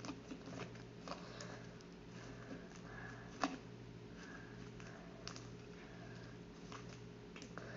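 Faint scattered clicks and light handling noises, with one sharper click about three and a half seconds in, over a low steady hum.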